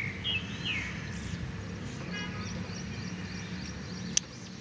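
Small birds chirping in short, repeated calls over a steady low background hum, with one sharp click near the end.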